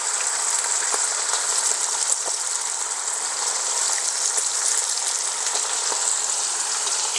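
Bacon frying in a skillet: a steady hiss of hot grease with scattered small pops, as raw strips are added to the pan.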